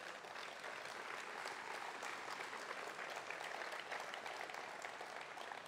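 Crowd applauding: steady clapping from many hands.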